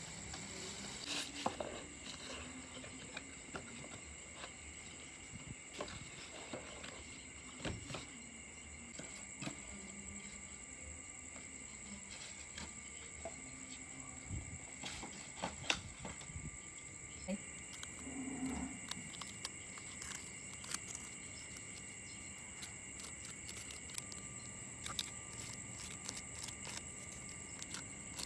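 Plastic bag crinkling and a cardboard pizza box and sauce packets being handled, many short clicks and rustles, over steady high-pitched insect chirping.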